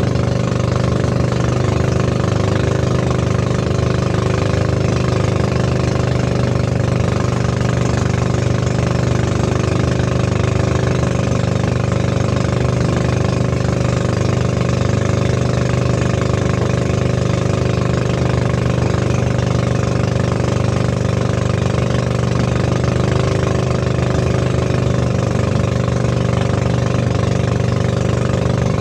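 Outrigger boat's engine running steadily at cruising speed, with water rushing and splashing along the hull.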